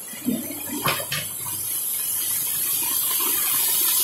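Muddy floodwater rushing in heavy rain: a steady rush that grows louder, with two short knocks about a second in.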